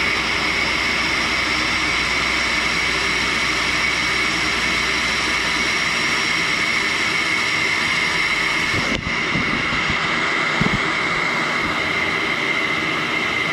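Tool and cutter grinder running a thin cutoff wheel for sawing carbide, with its dust vacuum going: a steady whooshing hiss with a high whine. The level dips briefly about nine seconds in.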